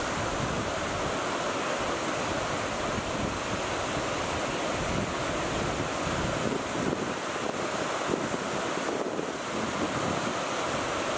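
Steady rush of river water pouring over a low concrete weir, a loud constant noise.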